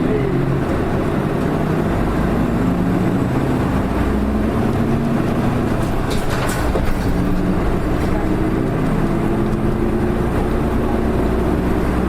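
Hino Blue Ribbon II city bus's diesel engine pulling away from a stop, heard from inside the cabin. The engine note rises, drops back about four seconds in, and rises again through the gears.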